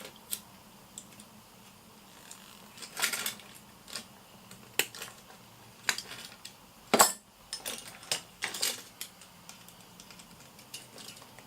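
Small fishing-tackle hardware clicking and clinking in scattered short rattles as a quick-release side-wash clip is pinched onto a flasher's fitting. The loudest click comes about seven seconds in.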